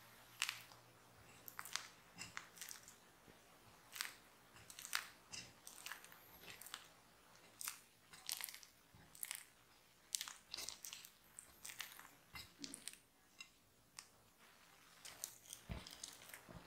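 A spatula pressing and folding sticky, oiled bread dough in a glass container: quiet, irregular wet crackles and squelches as the gassy dough is pulled and deflated. Near the end there is one soft, low thump.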